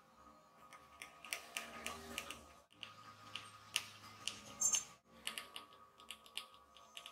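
Screwdriver turning a slotted screw to fasten a bracket: a run of small, irregular clicks and ticks.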